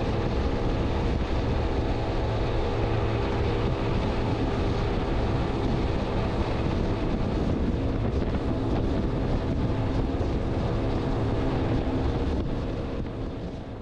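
Twin Evinrude 150 two-stroke outboards running at speed, a steady engine drone under wind on the microphone and the rush of the wake. The sound fades out near the end.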